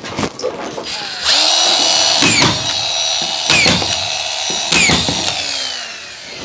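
Power drill running in a steady high whine for about five seconds, its pitch dipping and recovering three times as it loads up, typical of driving screws into timber.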